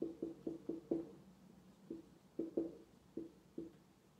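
Marker squeaking on a board in short strokes while a map outline is drawn: about ten brief squeaks, a quick run of five in the first second, then more spaced ones from about two seconds in.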